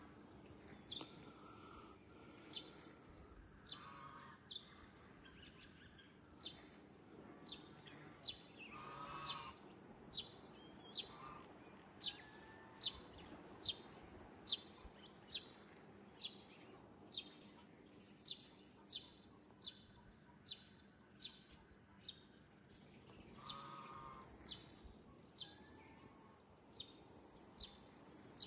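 A bird repeating one short, high call a little more than once a second, over a faint steady background hum. A few lower, fuller bird calls come in now and then.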